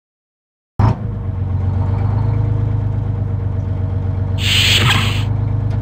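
Bus engine starts suddenly under a second in and runs with a steady low rumble. About four and a half seconds in, a short pneumatic hiss sounds over it.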